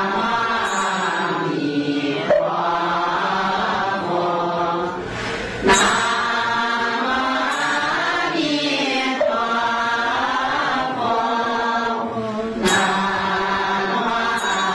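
Buddhist chanting: a sung, melodic recitation whose pitch glides up and down, with a few brief breaks.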